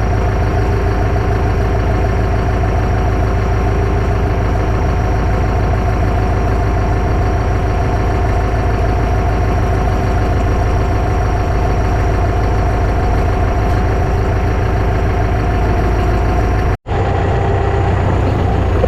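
Valmet 1280 tractor's diesel engine running steadily while pulling a soybean planter. The sound drops out for an instant about seventeen seconds in, then the engine carries on.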